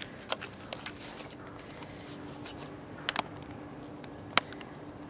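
Handling noise from a camera being moved and adjusted: scattered light clicks and rubbing, with a sharper click a little after three seconds and the loudest one about four seconds in, over a faint steady hum.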